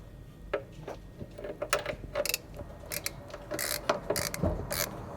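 Irregular metallic clicks and clinks of hand tools working on the engine during an oil change, coming thicker in the second half.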